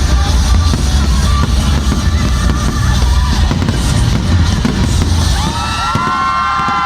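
Fireworks bursting over loud music with a heavy bass beat. The bass drops out about five and a half seconds in, and crowd voices whoop near the end.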